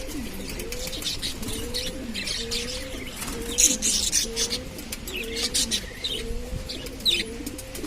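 Budgerigars chattering with quick high chirps and warbles, over pigeons cooing repeatedly.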